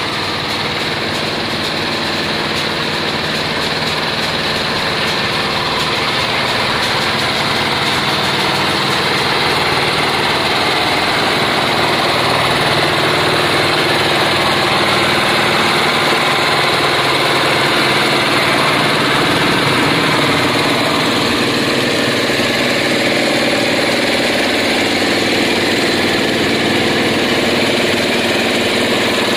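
Diesel engines of a slow-moving multi-axle heavy-haul trailer rig running steadily, including a small engine-driven unit on the trailer deck close by.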